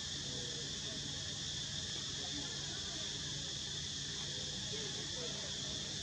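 Steady outdoor chorus of insects, an unbroken high-pitched trilling drone.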